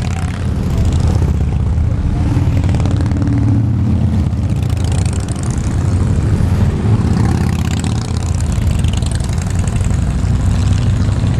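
Motor vehicle engines running with a steady low rumble.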